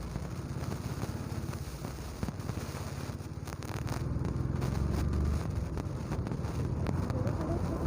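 Motorcycle engine running while the bike is ridden along a road, getting louder about four seconds in.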